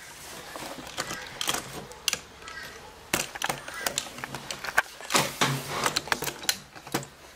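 Plastic slime containers handled on a wooden tabletop: a run of irregular clicks and knocks, the loudest a little past three seconds in and again near five seconds.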